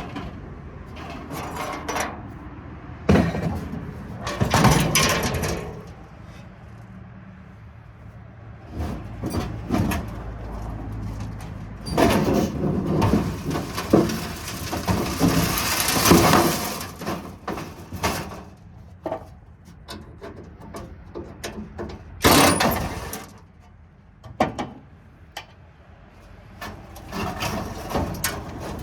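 Metal clanking and banging from sheet-metal scrap and parking-lot light fixture parts being handled, pulled apart and dropped onto a pile, with a longer scraping rasp about halfway through and a low steady hum underneath in the first part.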